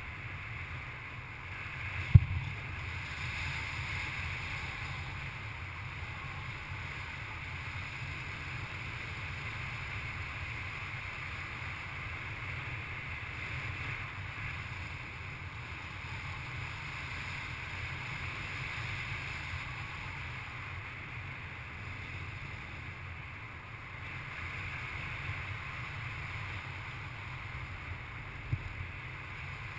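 Steady wind noise from the airflow over a harness-mounted action camera in paraglider flight: a low rumble with a hiss above it. A sharp knock comes about two seconds in, and a smaller one comes near the end.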